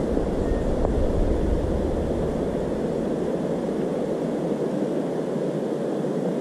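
Steady wind rushing over the microphone, with a deeper rumble that eases off about halfway through.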